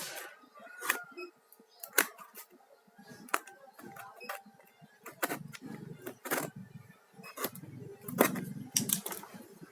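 Irregular sharp clicks and taps of small hard objects being handled, about a dozen spread unevenly, with a low rumble building near the end.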